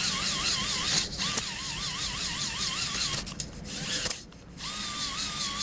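Power drill spinning a glaze-breaker hone inside an engine cylinder bore to scour off surface rust, its motor whine wavering up and down in pitch. It cuts out briefly about a second in and again for about a second just before four seconds, then runs at a steadier pitch.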